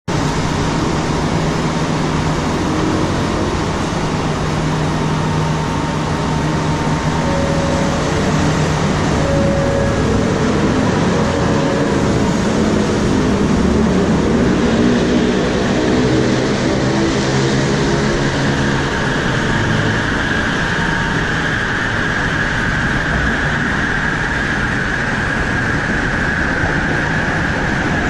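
Bombardier Innovia Metro 300 (Mark III) train standing at the platform and then pulling away, its linear induction motors giving a whine that rises in pitch and grows stronger through the second half, over a steady rumble of the train and station.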